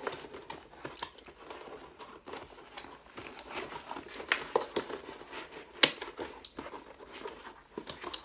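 Packaging being opened by hand: irregular crinkling and tearing with scattered clicks, and one sharper snap about six seconds in.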